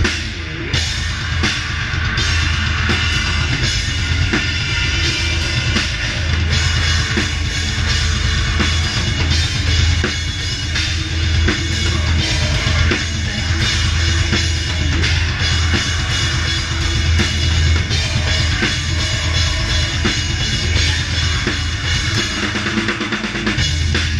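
A metal band playing live, heard close up at the drum kit: bass drum hits in quick succession and crashing cymbals drive the song, with the rest of the band underneath.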